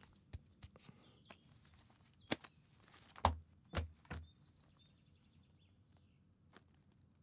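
Belongings being handled and packed: scattered light knocks and clicks, with three dull thumps about three to four seconds in.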